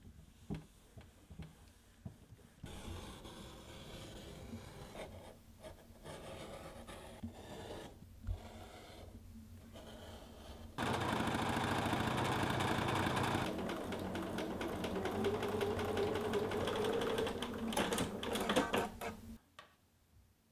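Soft rubbing and clicks of cotton cloth being ironed and cut, then an electric sewing machine stitching at a fast steady run for about eight seconds, the loudest part, stopping abruptly near the end.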